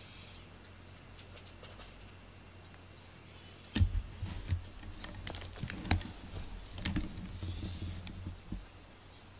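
Close handling noise at the microphone: a cluster of sharp taps, clicks and soft low thumps starts about four seconds in and dies away near the end, while the camera moves in on a cat beside its fabric play tunnel.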